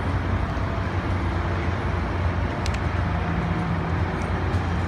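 Steady low rumble and hum of a Tri-Rail commuter train, with one brief click a little past halfway.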